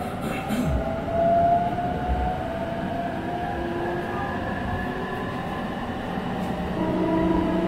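Interior running noise of a JR East E531 series electric commuter train at speed: a steady rumble of wheels on rail, with several steady whining tones from the traction motors. About seven seconds in, a new lower steady hum joins.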